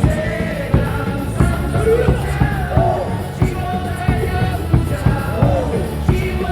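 A stadium baseball cheer song plays over the loudspeakers with a steady beat, and the crowd sings along.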